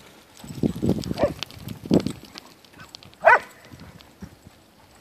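Dogs at play: low, rough vocal sounds for the first two seconds, then one sharp bark a little past three seconds in.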